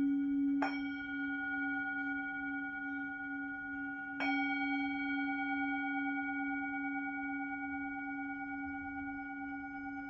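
Tibetan singing bowl, held on the palm, struck twice with a wooden mallet, about half a second in and again about four seconds in. Each strike renews a long ring of several steady tones that slowly fades, the deepest tone wavering.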